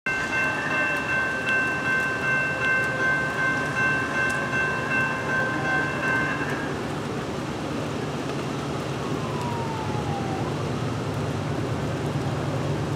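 Distant diesel locomotive air horn sounding one long chord of several steady notes, which stops about six and a half seconds in. A low steady rumble continues underneath.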